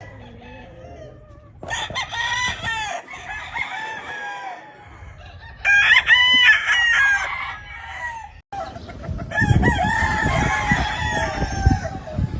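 Gamefowl roosters crowing, three long crows in turn with some overlap, the middle one loudest. A low rumbling noise joins in under the last crow.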